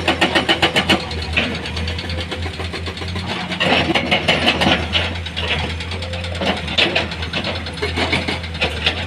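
Heavy-equipment diesel engine running with a steady low hum. It pulses evenly at about five beats a second for the first second, then gives uneven louder surges.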